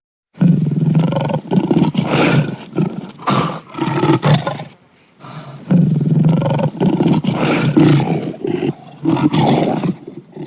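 Lion roaring in two long, loud bouts, each a run of rough, pulsing roars, with a brief pause between them just before the middle.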